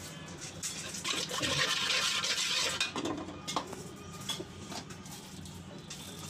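Metal spatula stirring and scraping in an aluminium pot of watery spiced onion mixture, with scattered clinks against the pot. The scraping is louder between about one and three seconds in.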